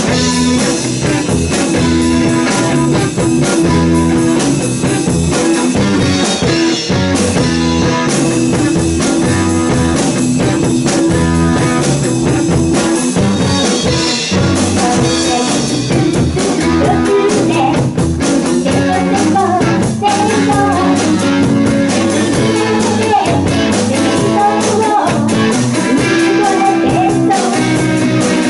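Live rock band playing, with electric guitars and a drum kit, joined by a woman singing partway through.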